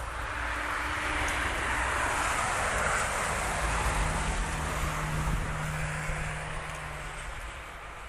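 A car driving past on a road, its tyre noise swelling to a peak a few seconds in and then fading away.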